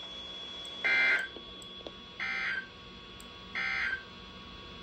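Three short bursts of EAS (SAME) digital data tones from a weather radio, evenly spaced about a second and a half apart, each a harsh two-tone warble.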